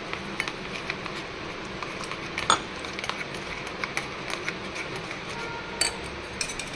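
Steel fork stirring and clinking against a small glass bowl as gram flour (besan), spices and water are beaten into a paste: frequent light clicks, with a sharper clink about two and a half seconds in and another near the end.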